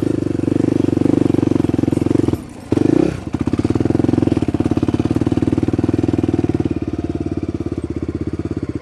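Honda dual-sport motorcycle engine running while riding. About two and a half seconds in its sound drops away for a moment, then comes back as a slower, evenly pulsing beat.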